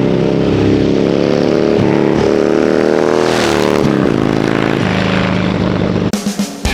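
Harley-Davidson Dyna's carbureted Twin Cam V-twin running through its S&S Grand National two-pipe exhaust, the pitch climbing slowly, then a quick rev up and back down about three seconds in. The engine sound cuts off abruptly near the end, where rock music begins.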